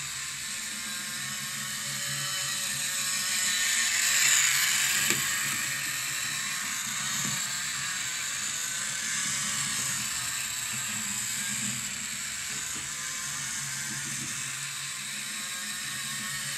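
Small electric motor and gears of a model bus whirring steadily as it drives along the plastered test track, swelling as it comes closest about four seconds in and then easing off.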